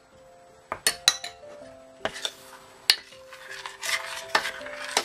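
Metal spoons clinking against each other and against a stainless steel pot as a spoonful of butter is scraped off into melted chocolate sauce and stirred in, with a scraping stir about three and a half seconds in.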